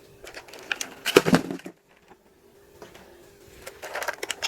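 Wrapped Kinder Joy eggs being handled and dropped into a container: plastic clattering and wrapper crinkling in two bursts, one about a second in and one near the end.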